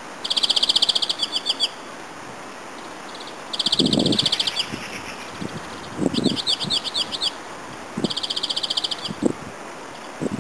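A songbird singing four short phrases of rapid trilled notes, each about a second long with pauses between; one phrase is made of quick up-and-down notes. A few soft low thumps come in between.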